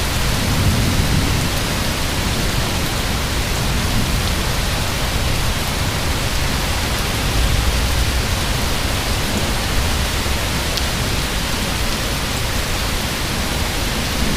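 Heavy thunderstorm rain pouring down in a steady hiss, with low thunder rumbling underneath and swelling about a second in and again about halfway through.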